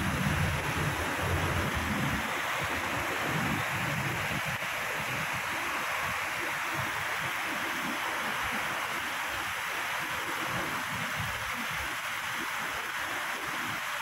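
Steady rush of shallow water running over a sloping concrete canal apron. Wind buffets the microphone with a low rumble in the first couple of seconds.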